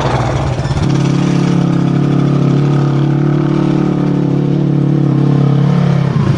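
A vehicle engine rises to higher revs about a second in, holds them steadily for about five seconds, then drops back near the end.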